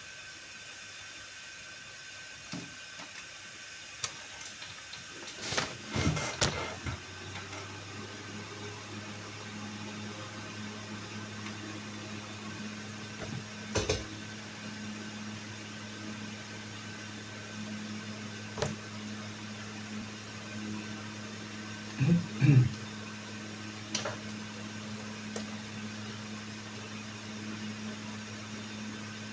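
A steady low hum sets in about six seconds in over a constant background hiss. It is broken by scattered knocks and clicks, the loudest clusters near six and twenty-two seconds.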